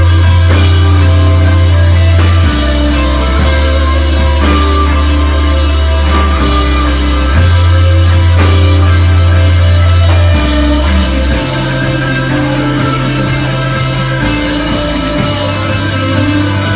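Rock band playing live, electric guitars and drum kit over long held bass notes that change every two to three seconds. About ten seconds in the low end thins out and the music gets slightly quieter.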